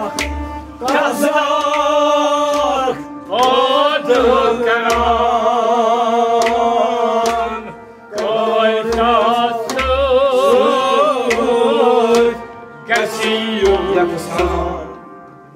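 A man singing a Kashmiri Sufi song in long, wavering phrases with short breaks between them, over a sustained harmonium and low drum beats.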